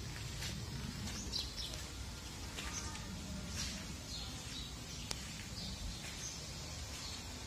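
Faint short high bird chirps, scattered, over a low steady rumble of background noise, with one sharp click about five seconds in.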